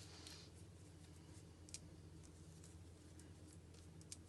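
Near silence over a steady low hum, with a few faint scattered clicks from a Casio G-Shock GA-2100's resin strap being handled and buckled onto a wrist.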